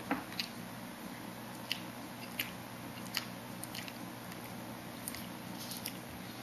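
A person chewing and smacking on a soft mouthful of cream pie, with irregular wet mouth clicks over a faint low steady hum.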